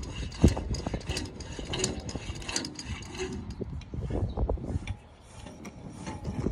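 Sewer inspection camera's push cable and reel rattling and clicking as the cable is worked down a cast iron drain pipe, with irregular clicks and knocks and one sharp knock about half a second in.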